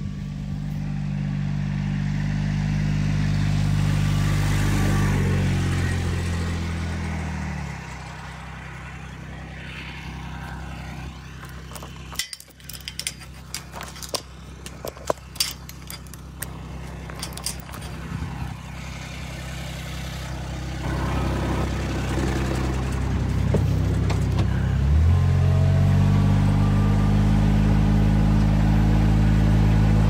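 Utility vehicle engine running steadily, then dropping away about seven seconds in. In the middle comes a string of sharp metallic clanks and rattles from a steel pipe gate. The engine then revs up again and runs steadily to the end.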